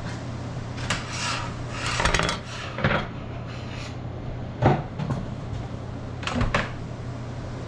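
Butchering work on a cutting table: short scrapes, rubs and knocks of knives and meat being handled, the sharpest knock a little past the middle, over a steady low hum.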